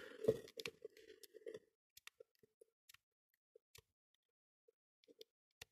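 Faint, irregular clicking of a bicycle combination cable lock's number wheel being turned by hand, one detent at a time, while the lock is held under heavy pulling tension to feel for a binding wheel. The clicks come in a quick run over the first second and a half, then only now and then.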